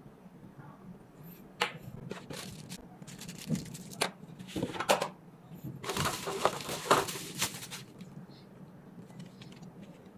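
Clicks and rustling from handling a string of lights and its packaging. Scattered clicks come in from about a second and a half in, the densest rustling is about six to seven and a half seconds in, and a few faint clicks follow.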